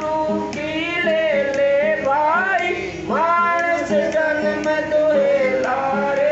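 Man singing a devotional shabad (hymn) in long, gliding drawn-out phrases, over steady held notes from an accompanying instrument and a light regular beat of about two a second.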